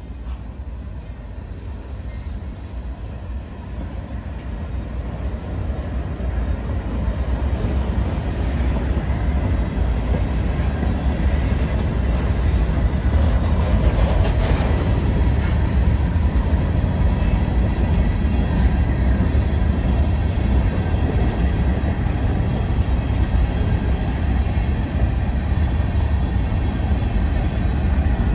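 Norfolk Southern freight train's covered hopper cars rolling past at close range: a steady, heavy rumble of wheels on rail. It builds over the first dozen seconds and then holds, with a few faint clicks.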